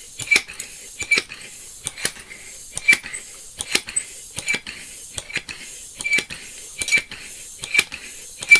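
Hand pump inflating a bicycle inner tube in steady strokes, about one every second, each with a metallic clink and a hiss of air. The tube is being blown up to find a puncture that could not be located by feel.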